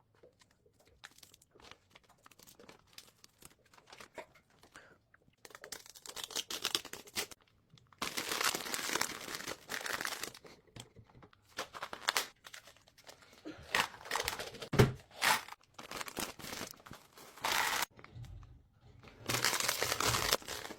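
Packaging of a snack box crinkling and tearing as it is opened and handled: bursts of rustling a second or two long, with short gaps and sharp crackles between.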